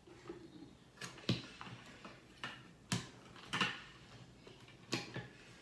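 Scattered hard clicks and knocks as the parts of a heavy new blender are handled and twisted to fit together, about six sharp clicks spread through.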